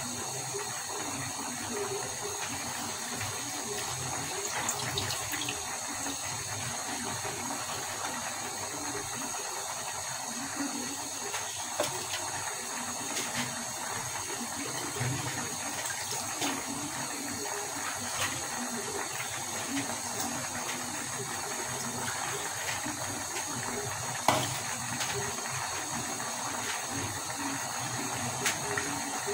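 Karai of beef tripe and Malabar spinach cooking over a gas burner: a steady sizzling hiss with a few faint pops.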